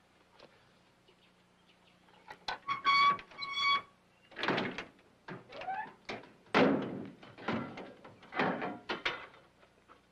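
Metal side door of a large trailer being unlatched and swung open: a series of clunks and scrapes with a short rising squeak among them, after two brief high tones about three seconds in.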